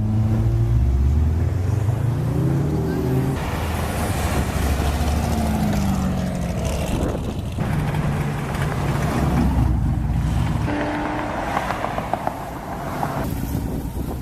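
Cars driving past one after another, their engines revving up and easing off as they leave the lot. Near the end there is a short run of sharp crackles.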